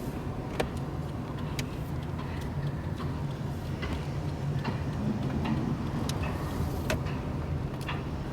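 Car being driven, heard as a steady low drone of engine and exhaust with scattered sharp clicks and ticks. The car's muffler is faulty and on its way to repair.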